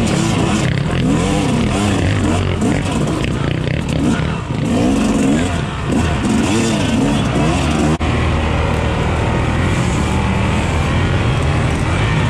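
Dirt bike engines revving up and down over and over, each rev a rise and fall in pitch about once a second. About eight seconds in there is an abrupt cut to a single dirt bike engine running more steadily.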